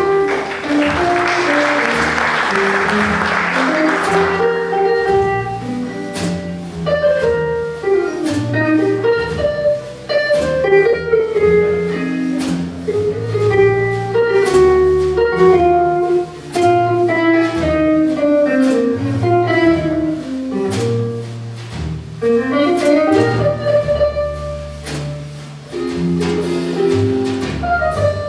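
Live jazz combo playing: a short burst of audience applause in the first four seconds, then a guitar solo in quick single-note runs over double bass and drums with steady cymbal strokes.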